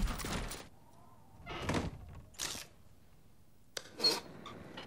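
A loud sound fades out in the first half second. Then come a few short, soft thuds, and a sharp click about four seconds in.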